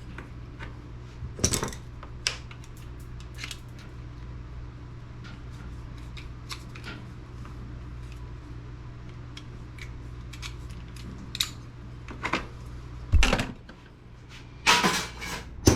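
Small metallic clicks and clinks of desktop computer parts being handled and pulled apart by hand, over a steady low hum. A loud knock comes about thirteen seconds in and the hum stops there, then a burst of clattering near the end.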